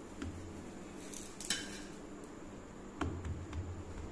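Hands folding and patting a stuffed wheat dough round flat on a stone countertop: soft handling noises with a few light taps and clicks, the sharpest about a second and a half in and another near three seconds.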